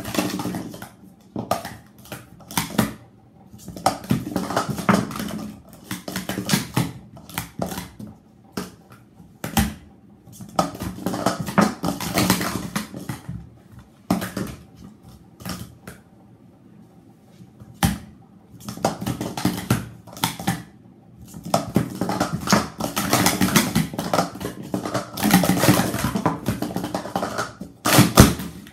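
Blue Speed Stacks plastic sport-stacking cups being stacked up and down fast on a stacking mat: rapid runs of plastic clacks and taps in bursts of a few seconds with short pauses between.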